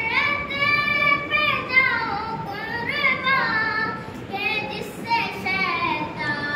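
A young boy singing a naat, a devotional poem in praise of the Prophet, solo and unaccompanied, in long held notes that bend and waver in pitch, with short breaks between phrases.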